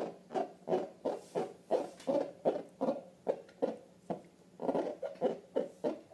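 Slime being squeezed and pressed by hand, giving a quick run of wet squelches about two to three a second, with a brief pause about four seconds in.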